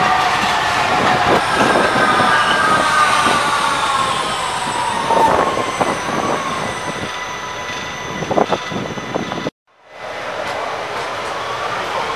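Vienna U-Bahn train passing on an elevated viaduct: the electric motors' whine falls in pitch, with a couple of clanks from the wheels. The sound drops out briefly about nine and a half seconds in, then another U-Bahn train is heard, its whine beginning to rise near the end.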